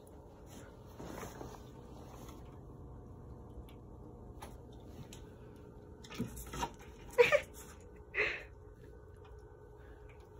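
Steady faint hum of an aquarium filter, broken by a few short taps and scrapes about six to eight seconds in, the loudest just after seven seconds, as a cat paws at the tank's edge and the paper lying on it.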